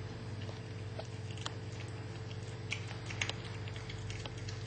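Cat chewing and crunching through a rodent's bones: irregular sharp clicks and crunches, the loudest two a little past the middle, over a steady low hum.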